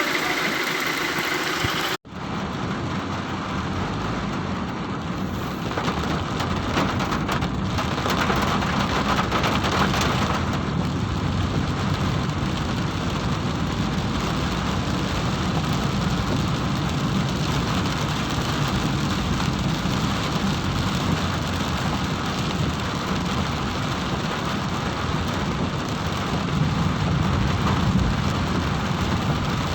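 Heavy rain falling steadily, a dense even hiss with a low rumble under it. The sound cuts out for an instant about two seconds in.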